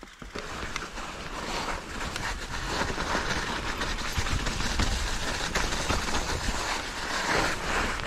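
Mountain bike rolling downhill over a snowy dirt trail: tyre noise with frequent small rattles and knocks from the bike over bumps, and wind rumbling on the microphone.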